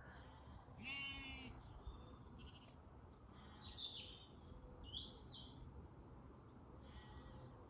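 Faint rural quiet with a distant sheep bleating once about a second in, and small birds chirping a few times near the middle.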